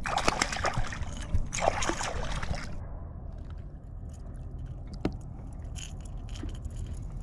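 A hooked spotted seatrout thrashing and splashing at the surface beside an inflatable kayak, in loud irregular splashes for the first two and a half seconds or so. After that the sound suddenly drops to a quiet low rumble with a few faint clicks.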